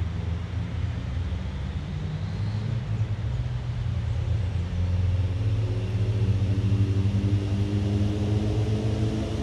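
A vehicle engine running, low and steady, growing louder about halfway through with its pitch creeping slightly upward.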